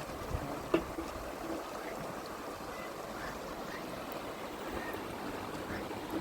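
River water flowing with a steady rushing, and a single sharp knock about three-quarters of a second in.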